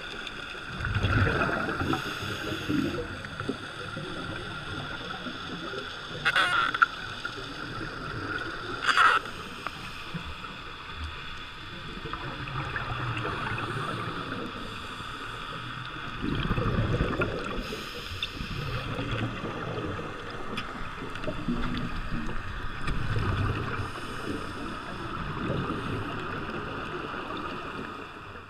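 A scuba diver breathing through a regulator, heard underwater: low gurgling rushes of exhaled bubbles about a second in, again around the middle and near the end, and two short hisses of inhalation in between, over a steady high hum.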